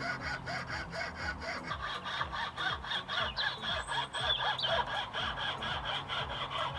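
Hand fretsaw with a fine blade cutting slowly through dense purpleheart wood: an even, rhythmic rasp of several strokes a second. A steady low hum runs underneath.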